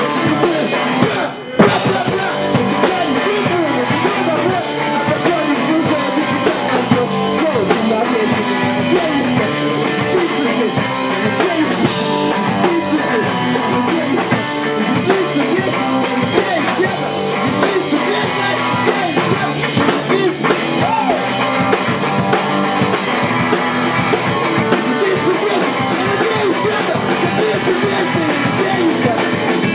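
A pop-punk band playing live: electric guitars and a drum kit driving a fast rock song. About a second and a half in the band stops for a moment, then comes back in on a loud hit.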